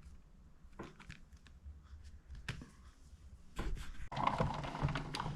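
Card and a plastic embossing folder being handled: a few light taps and clicks, then from about three and a half seconds in a louder, busier run of rustling and scraping.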